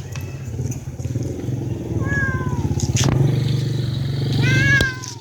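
Domestic cat meowing twice, a falling meow about two seconds in and a longer, louder one near the end, over a steady low rumble.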